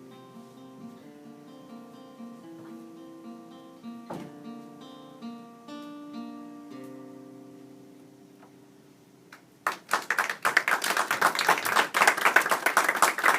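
Acoustic guitar picking a slow, spare melody of single plucked notes that fades out. About ten seconds in, loud audience applause breaks out.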